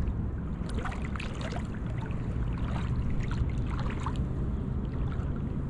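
Water sloshing and splashing lightly around someone wading waist-deep, in scattered small splashes over a steady low rumble.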